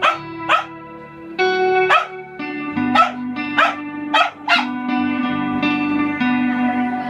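A small dog barking in short, sharp yaps, about seven times, along with electric guitar chords held and changed every second or so through an amp.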